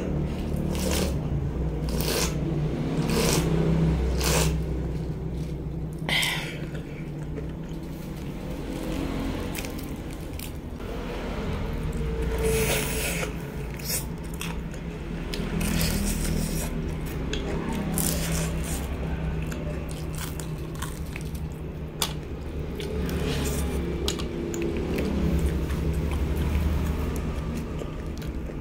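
A person eating crispy fried chicken and fried sweet potato fries: irregular crunching bites and chewing over a steady low hum.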